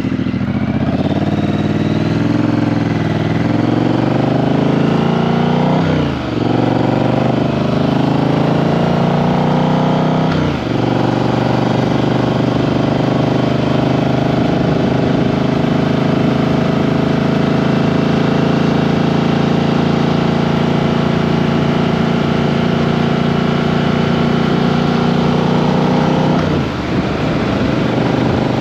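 Triumph Street Twin's 900 cc parallel-twin engine under way, pulling up through the gears. Its pitch rises, then drops with upshifts about six and ten seconds in. It then holds a steady cruise, with a brief dip near the end.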